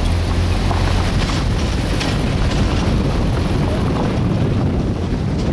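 A vehicle driving on an unpaved road: steady low rumble of engine and road, with wind buffeting the microphone.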